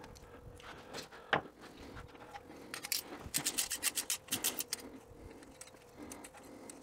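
Ratchet clicking in two quick runs about three seconds in, with a few scattered metallic taps and clicks, as a spark plug socket on a long extension is turned in a spark plug hole.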